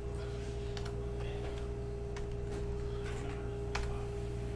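Steady electrical hum with a constant mid tone, broken by a few light clicks and taps from handling things at a desk, about one, two and four seconds in.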